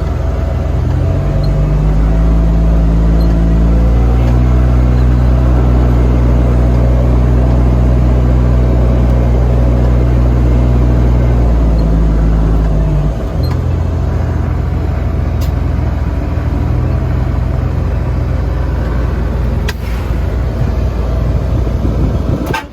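Heavy diesel engine revving up and holding at high revs, then dropping back to a lower steady run about thirteen seconds in.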